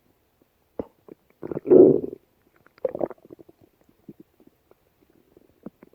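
A person's stomach growling in irregular gurgles: a loud gurgle about one and a half seconds in, a shorter one around three seconds, and faint gurgles and clicks between.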